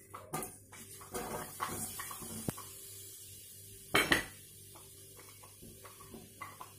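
Cooking utensils clattering against a pan as chopped onion and garlic go into the oil, in scattered knocks and clinks with a louder double clank about four seconds in. A faint steady high hiss runs underneath.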